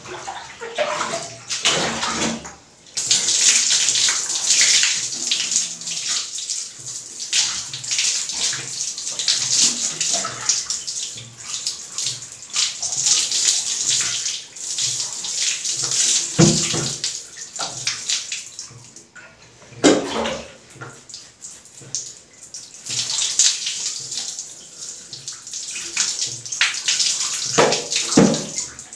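Water poured from a plastic bowl over long hair and splashing into a basin, in repeated pours with short breaks, as shampoo is rinsed out of the hair.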